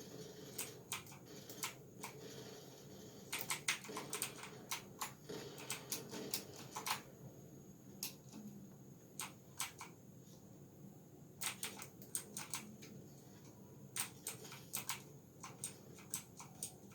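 Keys of a GamePower Saber RGB mechanical keyboard clacking as they are typed on, in short irregular runs of keystrokes with pauses between them.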